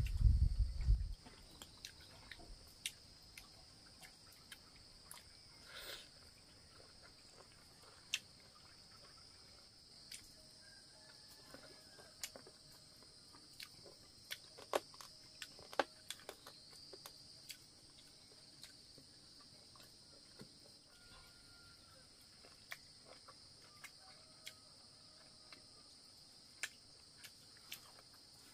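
Steady high-pitched chorus of insects, crickets or cicadas, with many small sharp clicks and taps scattered over it. A low rumble stops about a second in.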